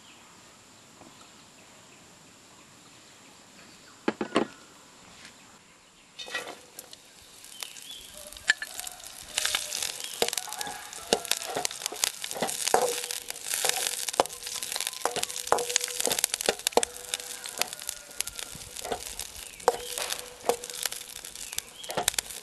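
Long thin green chillies sizzling and crackling in hot oil in a steel wok, with a wooden spatula scraping and tapping against the pan as they are stirred. After a quiet start with a single knock about four seconds in, the sizzling begins about six seconds in and grows louder from about eight seconds.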